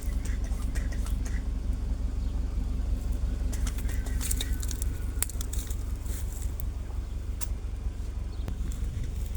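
Steady low rumble, with scattered faint clicks and a few brief high chirps about halfway through.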